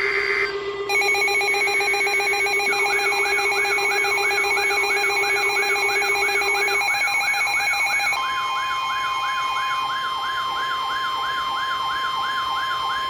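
Emergency Alert System tones on NOAA Weather Radio: the last SAME data burst cuts off, then layered electronic alarm tones play. A steady low tone and pulsing beeps come first, then a siren tone sweeping up and down nearly three times a second. From about eight seconds in, a steady single tone near 1 kHz, the 1050 Hz weather radio warning alarm, sounds over it.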